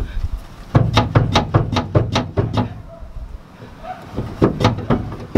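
A quick series of sharp metal knocks, about five a second and around ten in a row, then a few more near the end: blows on steel to free the stuck joint of a truck bed's hydraulic tipping cylinder.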